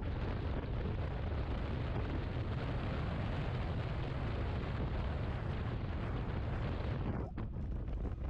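Steady rush of wind over the microphone on a Yamaha XMAX 250 maxi scooter cruising along, with the scooter's engine and tyre noise underneath; the rush eases briefly near the end.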